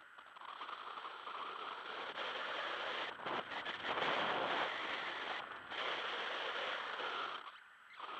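Airflow rushing over a paraglider-mounted camera in flight, swelling and easing, with a brief lull near the end.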